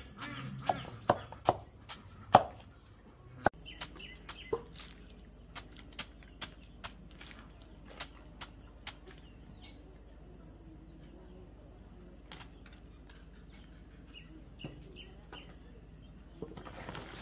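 A run of sharp chopping knocks, about two a second, for the first couple of seconds. Then a quiet outdoor background with scattered faint clicks and a thin, steady high whine.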